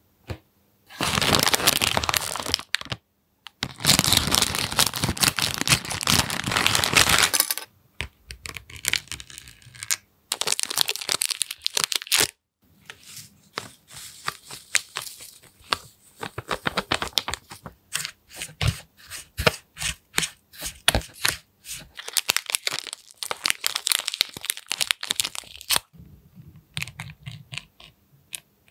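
Plastic candy-kit packaging being handled: the wrapper crinkles and tears open in two long loud stretches, then there is a run of short crackles, clicks and rustles from small packets and a clear plastic tray as they are opened and filled.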